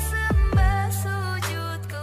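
Electronic background music: deep bass hits that drop sharply in pitch, a couple in the first second and another later, over held synth notes.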